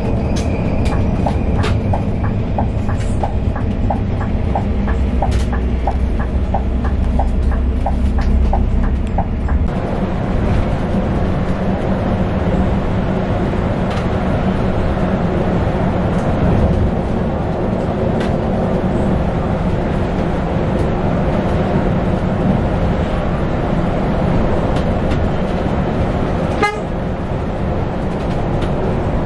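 Scania K410 coach at highway speed heard from inside the cab: the steady drone of the engine mixed with tyre and road noise. For the first ten seconds a regular ticking of about two ticks a second runs over a deeper hum, then the sound changes suddenly to an even road rumble.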